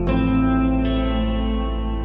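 Background music: sustained electric guitar chords with effects and echo, a new chord struck at the start.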